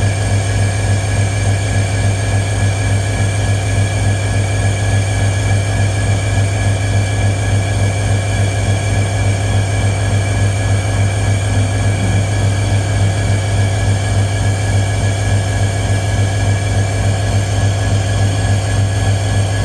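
Canadian National diesel locomotive idling: a steady low engine hum with several steady high tones over it.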